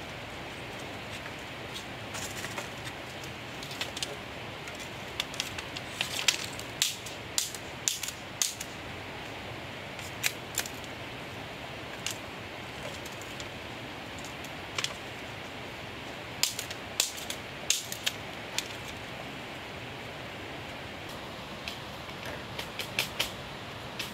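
Bamboo being cut and split with a knife, the poles and strips clattering against rock: sharp, irregular cracks and taps in clusters, over a steady background hiss.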